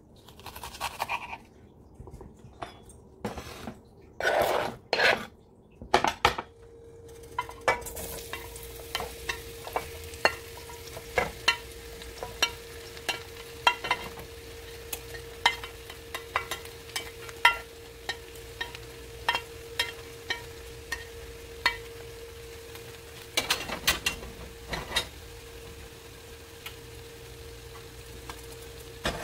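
For the first six seconds, a knife cuts through a red onion on a plastic cutting board. Then chopped spinach, mushrooms and peppers sizzle in oil in a nonstick skillet, with many sharp pops of spattering oil over a steady hum.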